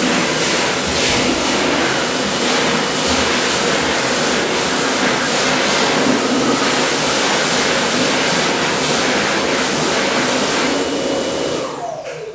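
A loud, steady rushing noise, the strange sound from the other side of a public toilet cubicle. It cuts off near the end and trails away in a falling whine.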